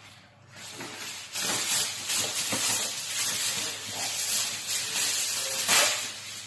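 Aluminium foil being pulled off the roll and handled, a steady crinkling rustle that starts about half a second in and is loudest near the end.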